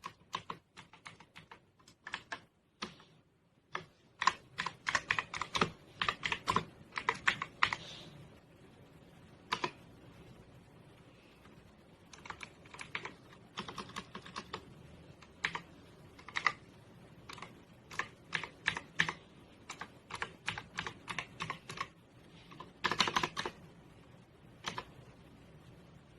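Typing on a LANGTU S69 mechanical keyboard: sharp key clicks in irregular runs and flurries, broken by short pauses, with a dense burst of keystrokes near the end.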